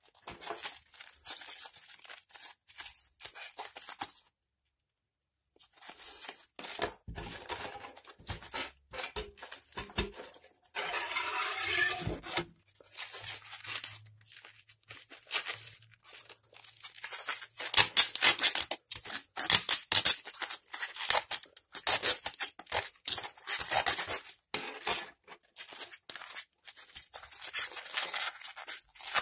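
Foil casing and layers of an old lithium-ion pouch battery being torn, peeled and crinkled by gloved hands, in many short scratchy bursts. They stop for about a second and a half a few seconds in and are loudest in the second half.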